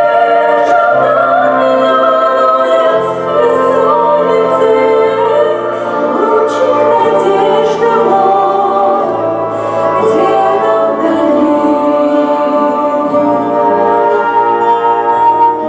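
A song from a stage musical sung in Russian, with instrumental accompaniment: sung melody over a steady bass line that moves to a new note every second or so.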